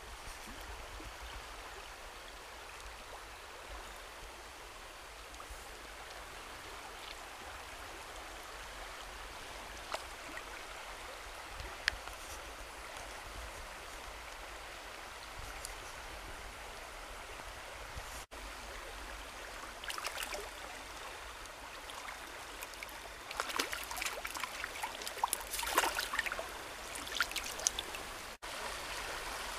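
Small stream flowing over a shallow riffle, a steady rush of running water. In the last several seconds a run of sharp clicks comes in over the water sound.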